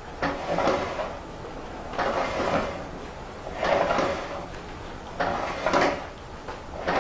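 Heavy Harris tweed woollen cloth being pulled and folded by hand, a rustling swish about every second and a half.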